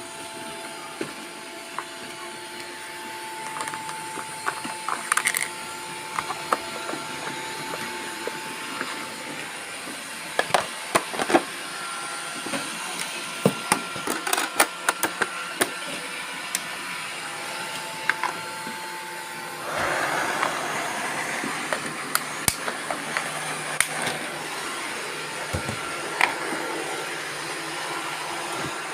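Several robot vacuum cleaners running together: a steady motor and brush whir with a high whine, broken by frequent sharp clicks and knocks. A louder rush of noise sets in about twenty seconds in.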